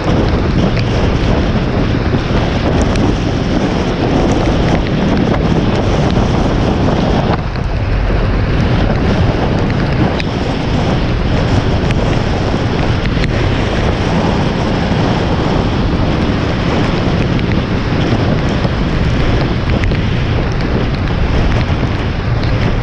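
Steady rush of wind buffeting a hood-mounted action camera on a moving car, mixed with tyres hissing over a wet, rain-covered road. The noise dips briefly about a third of the way in.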